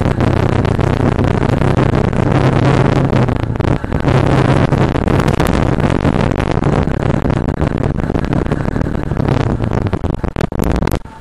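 Motorcycle engine running at a steady cruising speed with a low, even hum, under heavy wind noise rushing over the camera microphone. The sound eases off briefly near the end.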